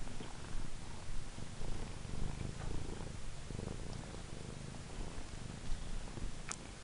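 A cat purring close up, a low pulsing rumble, with a short click near the end.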